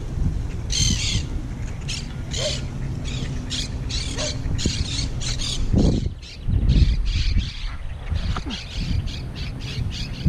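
A large flock of birds calling, many short sharp calls every second. Wind buffets the microphone throughout, loudest about six to seven seconds in.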